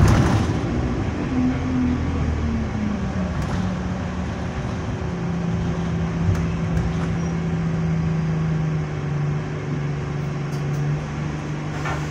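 Alexander Dennis Enviro200 bus engine heard from inside the saloon. A brief knock comes right at the start, then the engine note falls over the first few seconds and settles into a steady drone. The Allison automatic gearbox is in limp mode with no kickdown.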